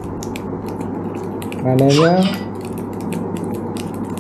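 Small hand-worked mechanism clicking rapidly and unevenly with light metal clinks, over a steady low hum. About two seconds in, a short rising hum stands out, the loudest moment.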